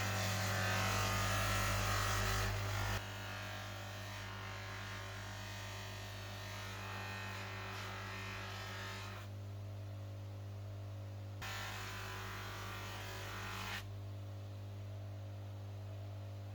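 A small electric motor running steadily with a low hum. A hissier sound over it drops away about three seconds in, then comes and goes twice more.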